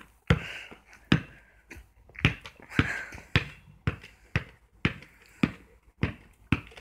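Basketball dribbled on a paved driveway: a steady run of sharp bounces, about two a second.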